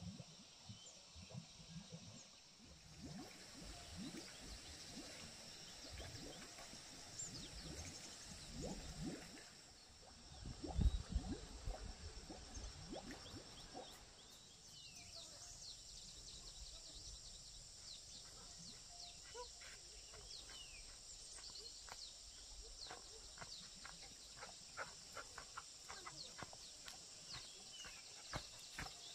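Quiet rural outdoor ambience with small birds chirping in short, scattered calls. Through the first half there are low knocks and rustling, with one louder thump about eleven seconds in.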